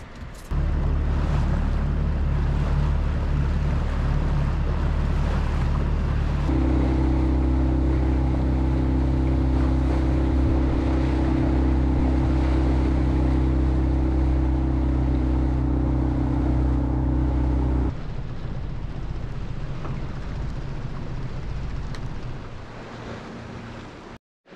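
Small fishing boat's outboard motor running steadily underway. Its note changes about six seconds in and stops after about eighteen seconds, leaving the rush of water along the hull and wind on the microphone, which fade lower near the end.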